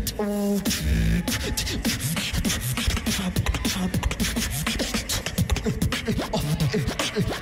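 Competitive beatboxing on a stage microphone: a short held pitched note at the start, then a fast, dense stream of clicks, snares and short bass hits.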